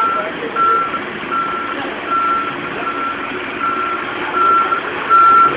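Fire engine's reversing alarm beeping: one steady high-pitched beep repeated a little faster than once a second, over the truck's background noise.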